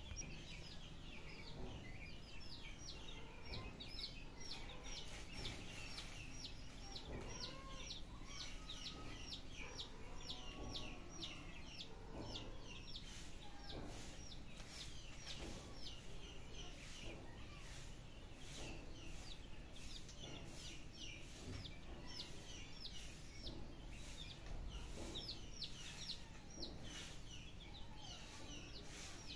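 Chicks and ducklings peeping: a steady run of short, high, falling peeps, about two or three a second.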